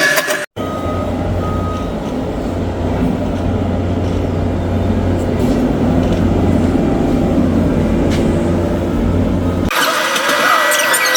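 Skid steer engine running steadily under work, a low even rumble, with two short high beeps about a second in.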